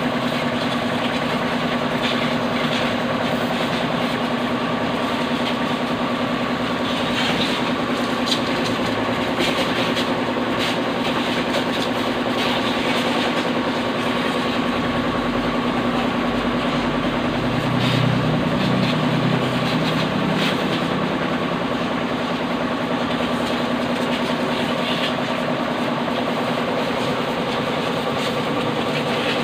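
Pressure washer running steadily with a constant motor-and-pump hum, its water jet hissing and spattering against the parts of a car's engine bay.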